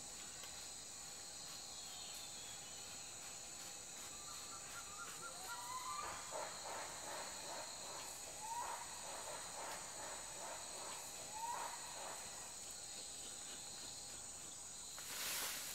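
Forest ambience: a steady high-pitched insect drone, with a few short whistled bird calls from about five seconds in. A burst of rustling comes near the end.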